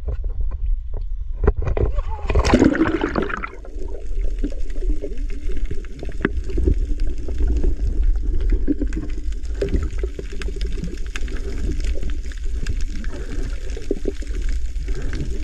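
A splash about two seconds in as a diver goes into the sea, then the muffled underwater sound of a camera held below the surface: a low water rumble with scattered faint crackling.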